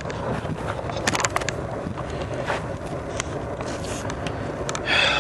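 Steady rumble of a long freight train of autorack car-carrier wagons rolling past, with scattered sharp clicks and a brief louder sound near the end.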